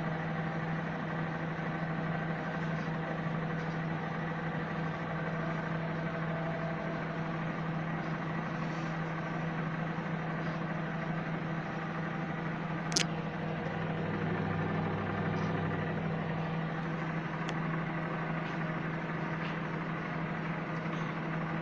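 Microwave oven running with a steady electrical hum. A single sharp click comes about thirteen seconds in.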